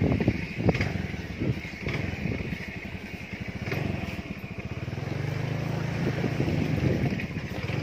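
Small motorcycle engine running at low speed on a rough dirt track, its hum growing stronger about five seconds in. Several knocks and rattles in the first couple of seconds as the bike jolts over the damaged road.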